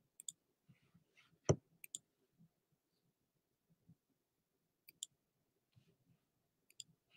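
Faint, scattered clicks at a computer desk, a dozen or so spread over several seconds, with one louder knock about one and a half seconds in.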